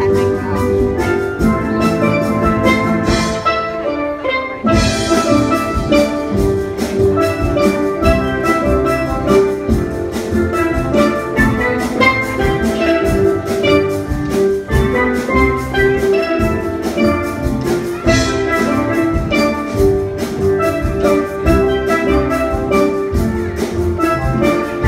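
Steel band playing a pop song on a row of steel pans, pitched notes struck in a steady rhythm, with a brief break about four seconds in.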